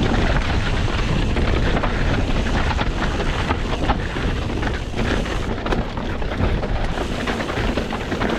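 Mountain bike riding fast down a wash: wind rumbles on the microphone while the tyres run over loose ground and the bike rattles with many small clicks.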